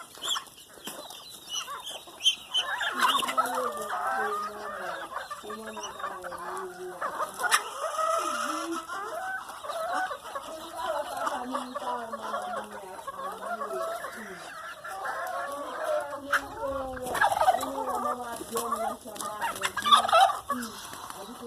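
A flock of chickens clucking and calling, many birds at once with overlapping calls.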